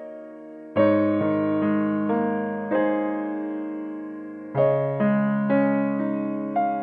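Background piano music: slow chords, each struck and left to ring and fade, with one longer held chord midway.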